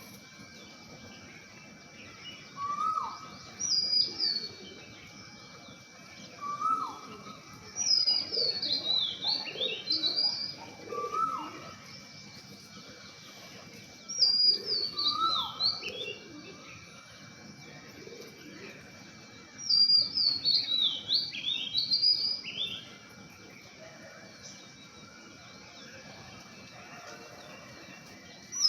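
Birds singing: a song of quick falling high notes comes in phrases of two or three seconds about every six seconds, with single shorter, lower calls between the phrases in the first half.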